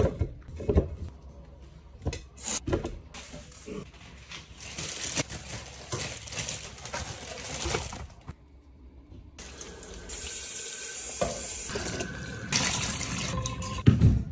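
Groceries being unpacked: fruit knocking against a glass jar in the first few seconds, then long stretches of plastic bag rustling as produce is unwrapped into a plastic tub.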